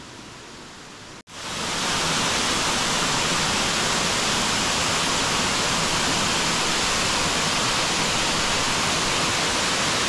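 Steady rush of Katiki Falls' water pouring down. About a second in, the sound jumps abruptly from a quieter hiss to a much louder, even rush.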